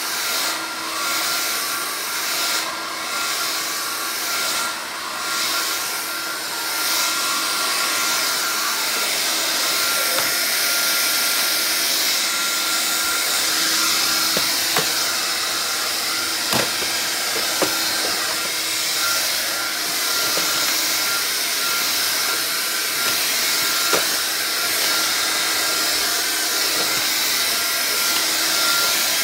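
Vax Air Cordless vacuum cleaner running steadily, a whooshing hiss with a constant whine. The loudness swells and dips over the first few seconds, and a few sharp ticks come about halfway through and later.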